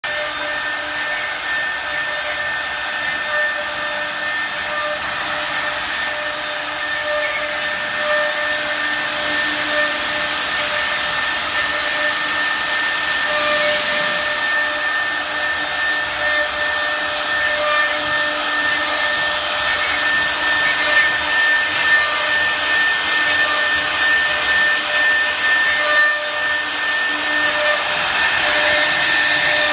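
Two-head CNC router running, its spindles giving a steady whine under a noisy hiss that swells and eases.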